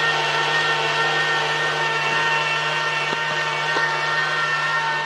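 KitchenAid stand mixer running with a steady whine, its wire whisk beating egg whites into a white foam in the steel bowl.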